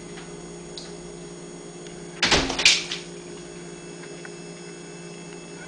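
Cat and puppy play-fighting on a tile floor: a brief, loud scuffling burst under a second long, about two seconds in, as the cat breaks away. A steady electrical hum underneath.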